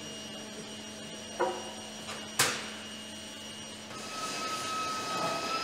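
Workshop sounds: two sharp knocks about a second apart over a steady hum. About four seconds in, the hum gives way to a steady high tone.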